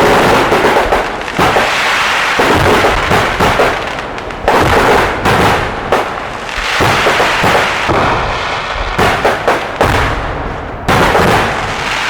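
Fireworks display going off in a rapid, near-continuous barrage of loud bangs and crackling, with brief lulls about four and a half and eleven seconds in.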